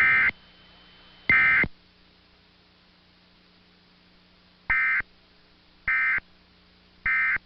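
Emergency Alert System digital data tones played through a TV: five short, shrill, warbling beeps, the last three evenly spaced about a second apart as the end-of-message code that closes the alert. A faint steady hum sits between the bursts.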